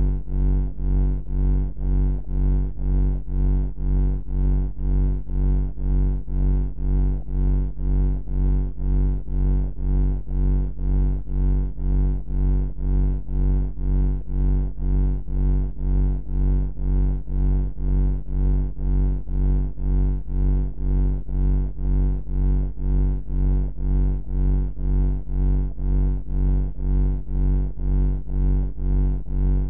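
Ambient bunker hum: a deep, steady electronic drone that pulses evenly about one and a half times a second.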